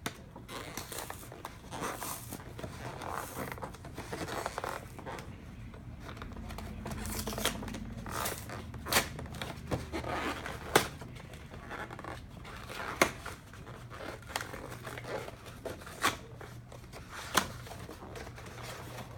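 Sealed cardboard collection box being worked open: scraping, cutting and tearing at its tape and packaging, with several sharp clicks in the second half.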